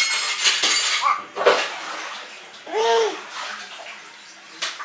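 A young child's short sing-song vocal sound, rising and falling, about three seconds in, after bursts of hissing mouth and movement noise over the first second and a half as a toddler eats an ice cream cone.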